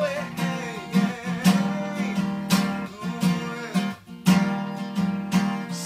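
Acoustic guitar strummed in a steady rhythm, chord strokes about every half second.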